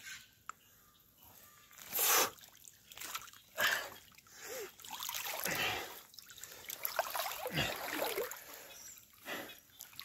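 Floodwater splashing and sloshing as a mountain bike is wheeled and lifted through it, in a series of separate splashes.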